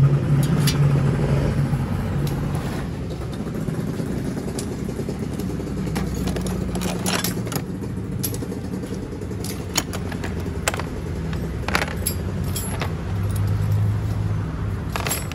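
Small brass espresso-machine fittings and valve parts clinking against each other and the plastic tray as they are handled, in scattered sharp clicks. A steady low engine hum runs underneath.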